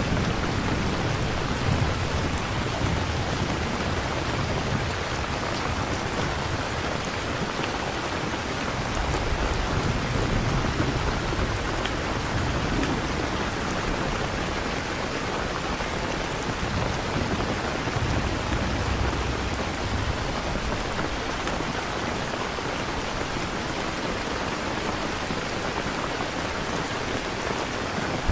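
Steady rain falling, with low rumbles of distant thunder swelling and fading a few times.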